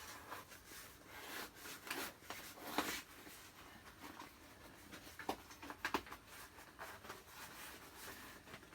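Bicycle tyre being worked off its rim by hand: faint rubbing of rubber against the rim, with scattered light clicks and taps.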